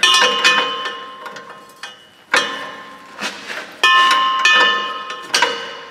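A metal wrench clinks and knocks as a new oxygen sensor is screwed into the exhaust. There are about seven sharp clinks at uneven intervals, and several ring on briefly.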